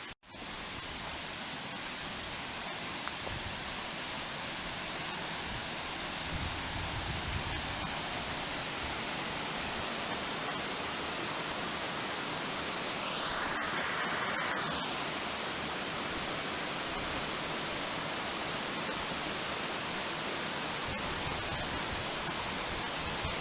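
Steady rushing of a waterfall, an even hiss with no rhythm, with a short higher-pitched sound a little past halfway through.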